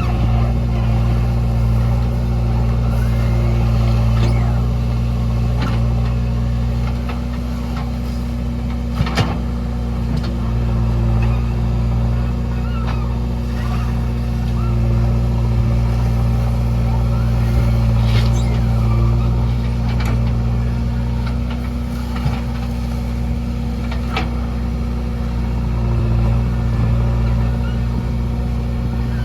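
JCB 3DX backhoe loader's diesel engine running steadily while it loads murum, rising and falling a little in loudness, with a couple of short knocks around nine and twenty-two seconds in.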